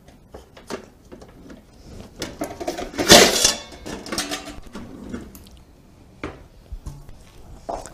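Metal platters and pans clattering and knocking while one is pulled out of a low kitchen cabinet, with one loud ringing clang about three seconds in.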